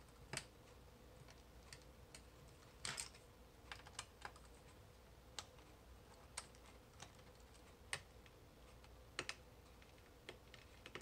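Small Phillips screwdriver clicking on the captive screws and the laptop's bottom case as the screws are backed out, one after another: about a dozen light, sharp clicks at irregular intervals.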